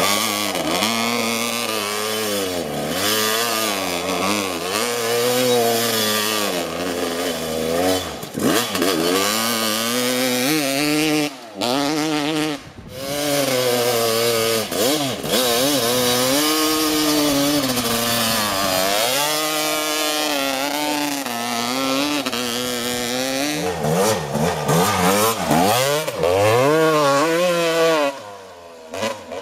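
Kawasaki KX motocross bike engine revved hard over and over, its pitch sweeping up and down as the throttle is blipped, with two brief drops when the throttle is shut about halfway through. Near the end the sound turns fainter and more distant.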